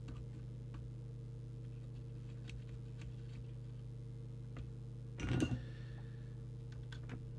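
A steady low hum with faint scattered ticks as a plastic alignment tool turns a tight ferrite core in a CB radio's coil. A brief louder noise comes about five seconds in.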